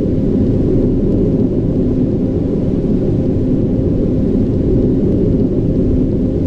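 Steady, loud low rumble with a faint even hum in it, the background drone of the spacewalk sound design.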